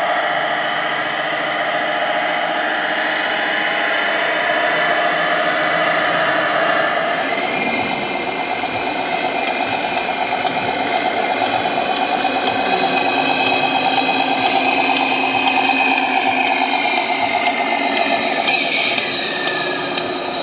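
Radio-controlled scale model trucks running, their onboard sound modules playing a steady diesel engine sound. The engine note changes about seven seconds in, and a falling tone comes near the end.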